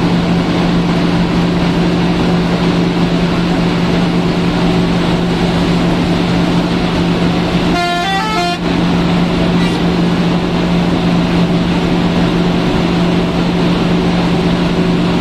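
Bus engine and road noise running steadily inside the cabin at highway speed, with a constant low hum. About eight seconds in, a multi-note musical horn plays a quick run of stepped notes lasting under a second.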